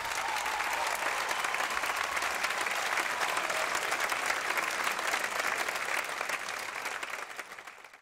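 Audience applauding, a dense, steady clapping that dies away over the last second.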